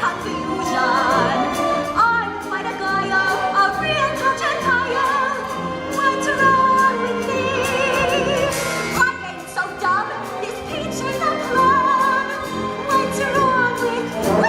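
Operatic-style singing with a wide vibrato over orchestral accompaniment, from a stage musical number.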